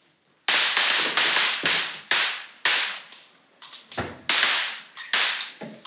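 Prop guns firing in a rapid, uneven string of about fifteen sharp reports, each with a short echo off a large hall.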